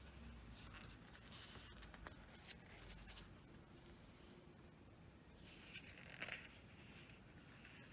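Near silence with faint paper rustling and light clicks, a photobook's pages being handled and turned, with a slightly louder rustle about six seconds in.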